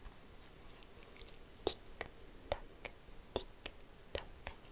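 Close-miked ASMR mouth sounds: short, wet clicks and pops from the lips and tongue, about two a second at an uneven pace, over faint hiss.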